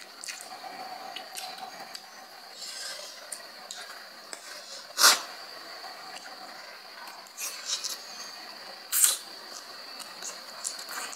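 Close-miked eating of saucy instant noodles: wet mouth smacks, chewing and slurps, with two louder sharp sounds about five and nine seconds in. A faint steady high-pitched whine runs underneath from a few seconds in.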